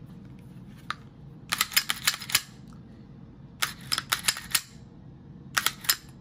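Springfield Echelon pistol slide being racked by hand three times, each a quick run of sharp metallic clicks and snaps as the slide is pulled back and let go.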